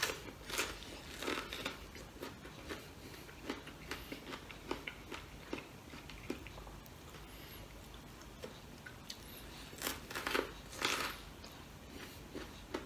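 Close-up mouth sounds of a person eating mango: wet smacks and chewing as the flesh is bitten and sucked off. Louder clusters come about a second in and again around ten seconds in.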